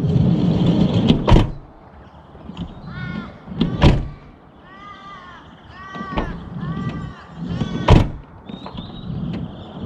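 A van's sliding door rumbles along its track and bangs shut, then is shut hard twice more, each a sharp bang. Several arched, crow-like cawing calls come in between the bangs.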